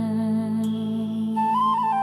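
Instrumental music: a sustained low drone chord, with a flute melody entering about one and a half seconds in and moving in small steps.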